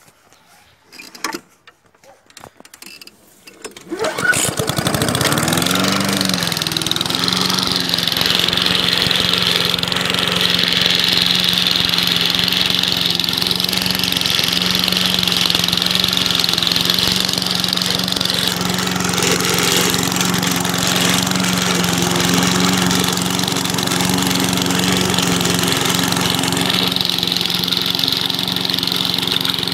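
Restored Briggs & Stratton 3.5 hp single-cylinder lawn mower engine starting about four seconds in and climbing quickly to speed. It then runs steadily while the mower is pushed through grass.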